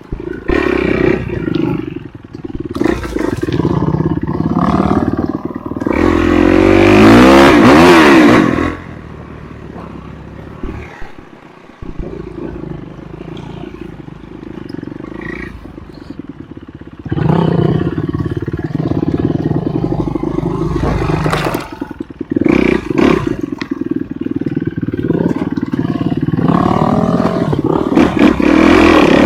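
Enduro dirt bike engine revving as it is ridden along a trail, with pitch rising and falling under the throttle. It pulls hardest about a quarter of the way in, eases to a quieter, lower running for several seconds, then revs hard again through the second half.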